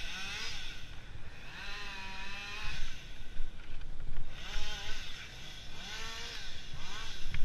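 Chainsaw engine revving up and down in repeated bursts of about a second each, over a steady low rumble.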